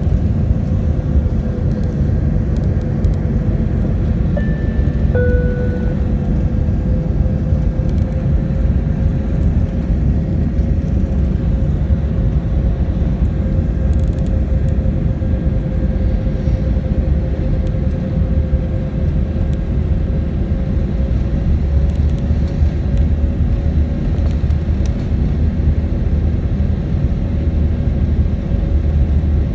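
Airliner cabin noise on the landing approach: the steady rumble of the jet engines and airflow, with a steady tone running through it. About four to five seconds in, a brief two-note falling tone sounds.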